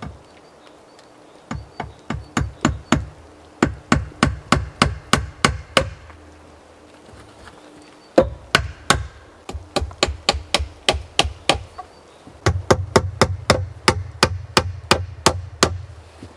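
Sharp knocks, each with a low thump, coming in four runs of quick, even strikes at about four a second, with short pauses between the runs.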